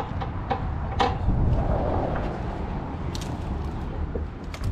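Sharp knocks of wood being handled, the loudest about a second in, over a steady low rumble.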